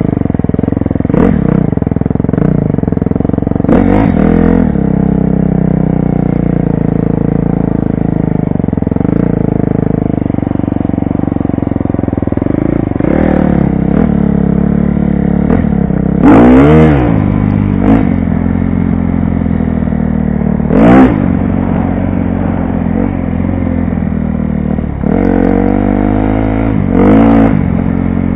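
2012 KTM 250 SX-F dirt bike's single-cylinder four-stroke engine running as it is ridden on a trail, heard from a helmet camera, its revs rising and falling. Several short, sharp surges of throttle, the loudest about halfway through and again about two-thirds in.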